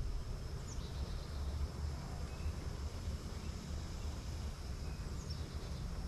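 Quiet outdoor background: a steady low rumble under a thin, high, steady insect drone, with two brief faint bird chirps, one about a second in and one near the end.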